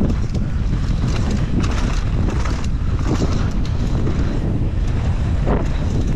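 Heavy wind rush buffeting the microphone of a mountain biker riding fast down a dirt trail, with irregular clattering and crunching from the tyres and bike over the bumpy track.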